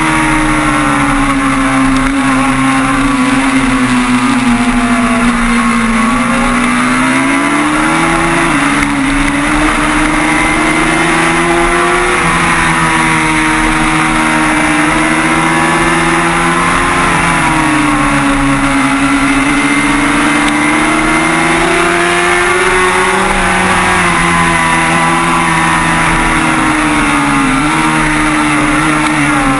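Kawasaki ZX-6R 636 racing motorcycle's inline-four engine at high revs, recorded on board, its note dropping and climbing several times as the rider brakes and accelerates through corners.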